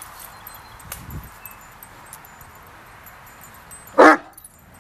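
A Great Dane gives a single short, loud bark about four seconds in, after a few seconds of low background.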